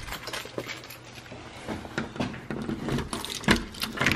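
Scattered clicks and knocks of keys and a door's deadbolt being handled as a door is unlocked, the loudest click near the end.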